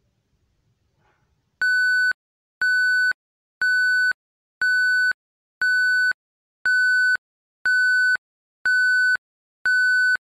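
Electronic countdown-timer beeps: a steady high beep about half a second long, once a second, starting about a second and a half in, nine in all, timing the seconds left to answer.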